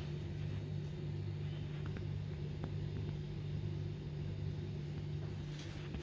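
Steady low machine hum with a few faint light clicks.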